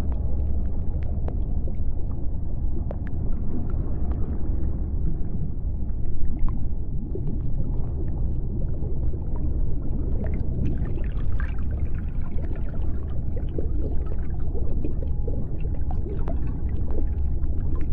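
Water circulating in an aquarium: the steady low rumble of the filter's flow with constant small bubbling ticks, and a busier patch of splashing and trickling about ten seconds in.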